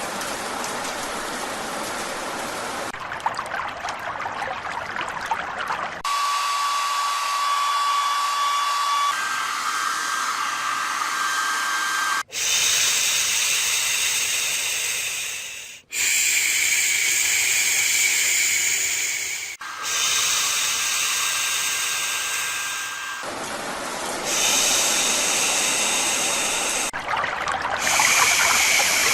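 Soothing white-noise tracks from a baby white-noise machine, played one after another. Each is a steady hiss lasting a few seconds before it cuts abruptly to the next, and a few carry a thin steady tone.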